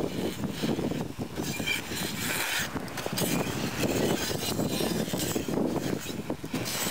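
Wind buffeting the microphone: a rough, uneven rumble that swells and drops in gusts.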